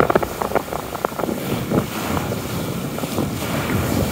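Wind buffeting the microphone on the deck of a sailing yacht under way, with the rush of sea water along the hull and small scattered knocks.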